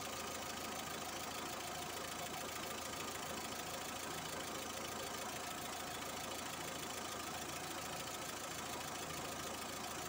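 Volkswagen Voyage car engine idling steadily, with an even, unchanging running sound.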